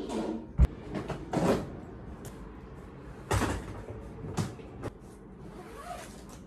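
A wooden room door pushed shut, with a sharp latch click about half a second in, then several swishing rustles and a few light knocks as things are handled at a sliding wardrobe.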